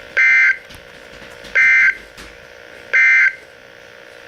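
NOAA Weather Radio EAS end-of-message (EOM) data bursts: three short, loud, buzzy two-tone digital bursts about a second apart, marking the end of the alert. Between them, a steady hiss and faint hum from the radio.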